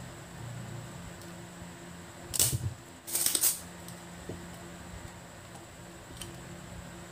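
A spring-loaded desoldering pump (solder sucker) firing, with two loud snaps about half a second apart near the middle, as solder is sucked from a circuit board's joints. A faint steady hum runs underneath.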